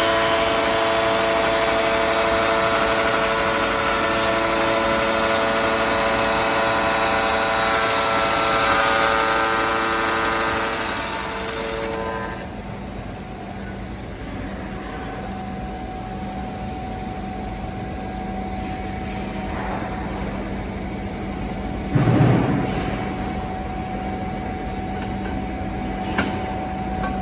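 UZ50 Triumph edge bevelling machine milling a bevel along the edge of a steel plate, a loud steady machine noise with several steady tones. About twelve seconds in the cutting stops and the motor runs on more quietly without load. Near the end a steel plate is set down on a stack with one loud clank, followed a few seconds later by a light clink.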